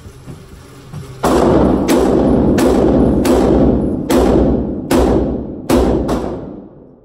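Six .44 Magnum shots from a Smith & Wesson 629 revolver, fired in quick succession over under four seconds, each blast ringing on in the reverberant indoor range. Two more gunshots follow close together near the end.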